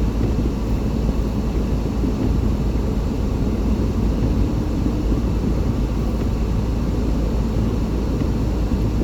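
Car driving, a steady low rumble of engine and tyres on the road.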